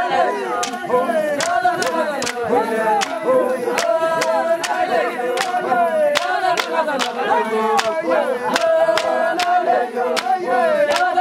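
Traditional Il Chamus group song: many men's and women's voices singing together without instruments, kept in time by sharp hand claps about two to three a second.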